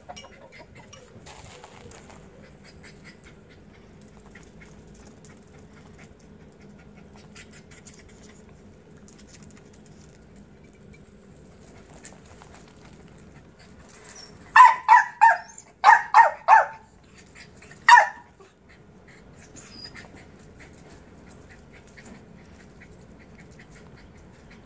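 Small dog barking: a quick run of sharp yaps about two thirds of the way in, then a single bark a second later, over a faint steady background.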